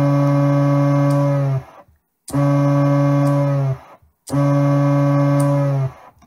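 The vocoder excitation board's oscillator playing a steady low buzzing tone through a speaker, three times in a row for under two seconds each. Each time the battery power is pulled the tone sags slightly in pitch and dies within a moment, the board's capacitors keeping it running briefly before it restarts.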